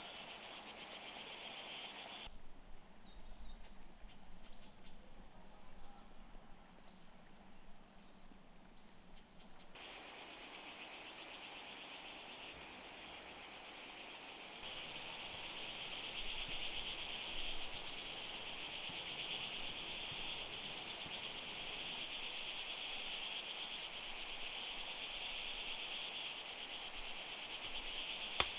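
Insects chirping outdoors: a steady high-pitched buzz that grows louder about halfway through, with a quieter stretch early on holding a few faint ticks.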